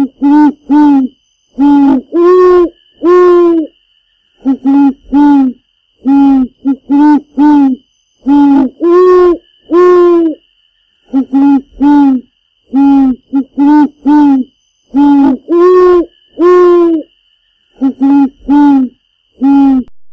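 A rhythmic series of loud hooting notes, owl-like, in short pairs and longer drawn notes, each rising a little and then falling, with brief silences between them. A faint steady high whine runs behind the notes.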